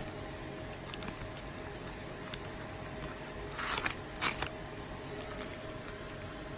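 Crinkling of the clear plastic packaging around a set of felt-tip markers as it is handled, in two short bursts about a second apart near the middle, the second sharper and louder, over a steady faint hiss.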